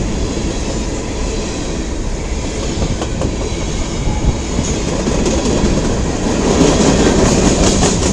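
Freight train cars rolling past close by, wheels clicking and clacking over rail joints in a steady, loud rumble that swells somewhat near the end.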